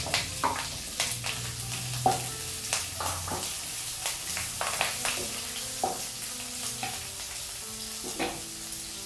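Chopped onions sizzling in hot oil in a non-stick kadai, with a wooden spatula scraping and knocking against the pan as they are stirred. The spatula knocks come thick in the first few seconds and thin out later, over a steady frying hiss.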